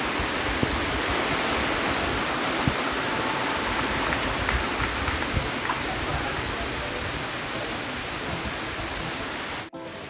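Steady rush of falling water from a waterfall, easing slightly and cutting off abruptly near the end.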